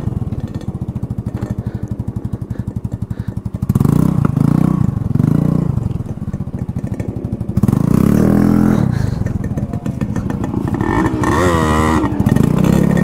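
Yamaha Fascino scooter's single-cylinder four-stroke engine through an aftermarket Akrapovic-style exhaust with the dB killer removed, running with a steady pulsing beat and then revving up several times, getting louder and rising in pitch about four seconds in and again near eight seconds.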